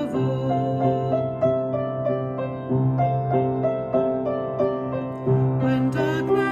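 Piano-led worship song playing, with repeated chords struck about three times a second over a sustained bass note.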